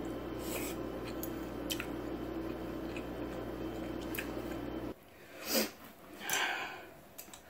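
Air conditioning running with a steady hum that is switched off about five seconds in, cutting out abruptly. Two short breathy sounds follow.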